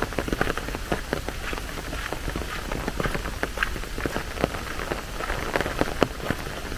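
Rain falling, with many close, irregular drop impacts over a steady hiss.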